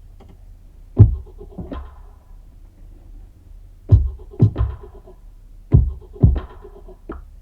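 Sparse electronic beat: drum-machine hits with short synth notes, coming in small clusters every second or two over a low steady hum.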